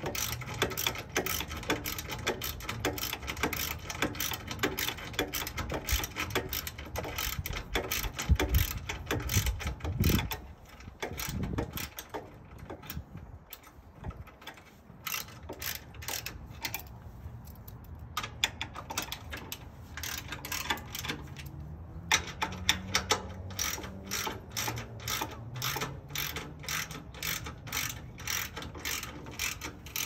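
Ratchet wrench clicking in long, even runs, about two or three clicks a second, as a mounting bolt on a trailer tongue jack is turned. A few low thumps come about eight to ten seconds in.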